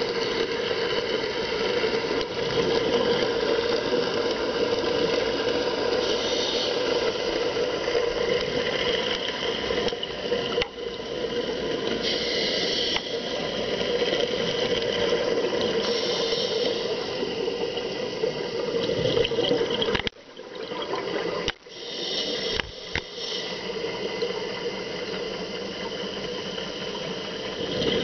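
Underwater sound through a camera housing: a scuba diver's regulator breathing, with hissy bursts of exhaled bubbles every few seconds over a steady low drone. The sound briefly drops out twice about three-quarters of the way through.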